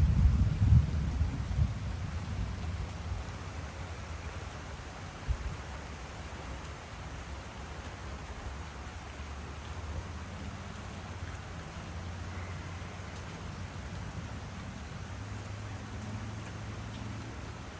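Thunder rumbling over the first couple of seconds and dying away, over steady rain hiss. A brief sharp thump about five seconds in.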